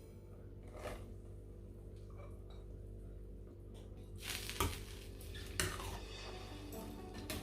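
Kitchen utensils clinking and knocking against pots and dishes while cooking, a few separate strikes, the loudest about four and a half and five and a half seconds in.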